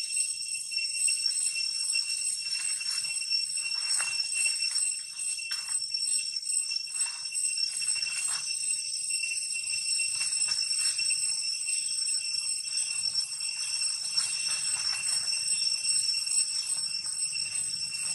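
A steady, unchanging high-pitched ringing drone of insects, with faint scuffing and rustling of monkeys scrambling through dry leaves.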